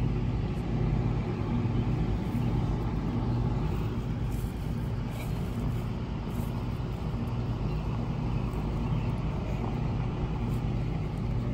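A steady, low mechanical hum from a machine running continuously, with an even, unchanging pitch.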